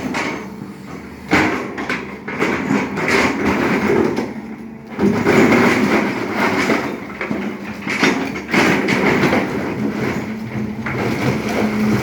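SANY hydraulic excavator at work: the diesel engine runs under load while the bucket and steel parts clank and scrape. Sharp jolts of louder noise come about a second in, around five seconds in and again after eight seconds.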